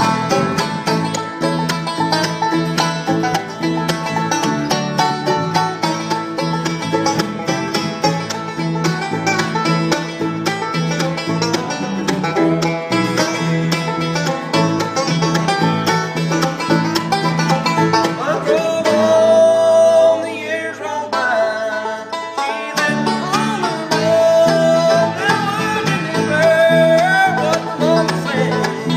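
A bluegrass band playing together: five-string banjo, mandolin, acoustic guitar and bass.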